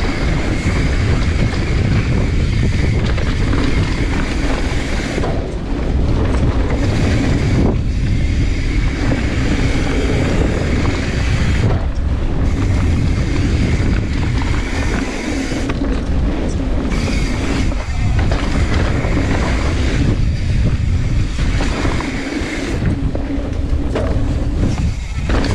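Wind noise on the microphone mixed with tyre roar and the rattle of a mountain bike riding fast down a rough dirt trail, with many small knocks as it hits bumps.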